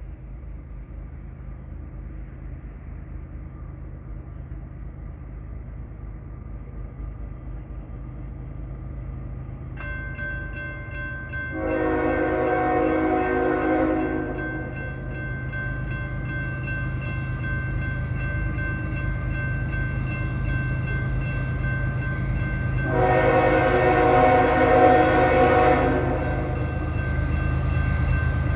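An approaching diesel freight locomotive rumbles, growing louder. About ten seconds in, a grade-crossing bell starts ringing. The lead locomotive's Nathan K5HL five-chime air horn sounds two long blasts, about eleven and twenty-three seconds in, and a third blast is just starting at the end.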